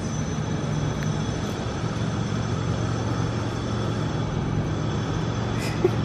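A steady low mechanical rumble with hum and a faint high hiss, like a running engine or machine.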